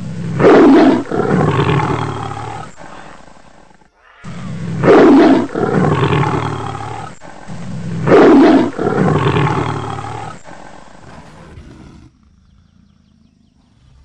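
Big cat roaring: three long roars, each loud at the start and trailing off over about three seconds.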